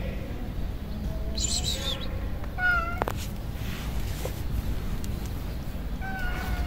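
Ginger kitten meowing several times in short, high-pitched meows, with a single sharp knock about three seconds in.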